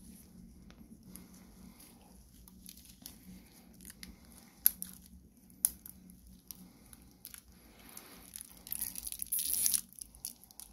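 Handling noise as latex-gloved hands take a Hamilton Open Heart watch on its stainless steel bracelet off the wrist and lay it on a cloth. Scattered light clicks of the steel bracelet links, with two sharper clicks about halfway and a stretch of glove and cloth rustling near the end.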